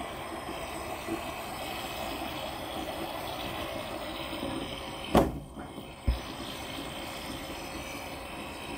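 Steady bubbling of submerged air stones in a water-filled plastic tote, the bubbles popping at the surface. A little past halfway there are two hollow plastic thuds about a second apart, the first the louder, as the tote's lid is set back down.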